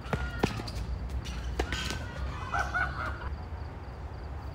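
Tennis ball being struck by rackets and bouncing on a hard court during a rally: several sharp hits, the loudest about half a second in. Brief squeaky sounds come between the hits.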